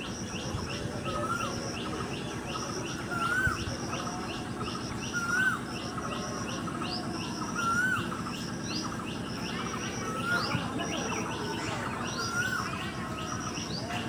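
Small birds calling outdoors: a short whistled note that rises and falls, repeated about every two seconds, over a quick run of higher chirps and a steady high insect-like trill, with a low background rumble.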